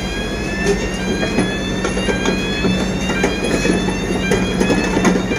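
Zoomlion ZCC550 crawler crane travelling on its steel tracks: a steady engine hum under frequent clanking knocks from the tracks and repeated rising squeals.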